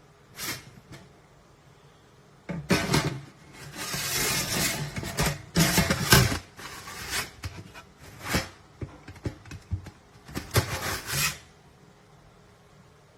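Rubbing and scraping handling noises in a string of irregular bursts, starting a couple of seconds in and stopping shortly before the end.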